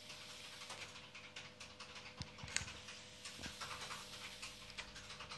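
Innokin T18 pen-style e-cigarette being drawn on in one long inhale: faint crackling of the coil firing, with many small irregular clicks over the soft rush of air.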